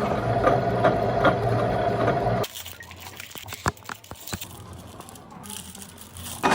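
A workshop machine running steadily with a held tone and a low hum, which cuts off abruptly about two and a half seconds in. A few light clicks and knocks follow in a much quieter stretch.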